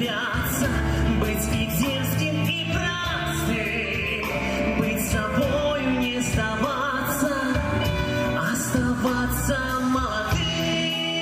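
Live band performing a song: male voices singing together over acoustic guitar, keyboard and a drum kit with regular cymbal hits.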